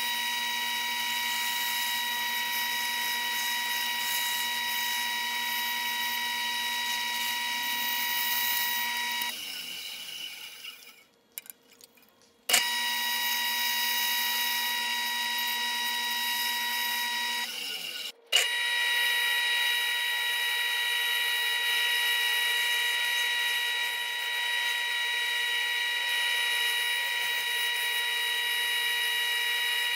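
Bandsaw running and cutting through thick wood, a steady high whine. About nine seconds in it winds down with a falling pitch and goes quiet for a few seconds, then starts again with a sharp click. It winds down the same way a little past halfway and starts again almost at once.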